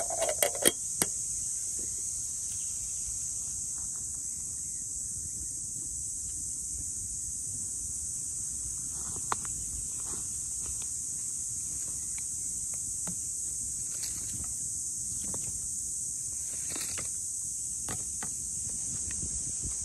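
Steady high-pitched chorus of insects, with a few sharp metallic clinks at the start as the lid is set on a brass camp kettle. Scattered faint knocks and crackles from the campfire follow later on.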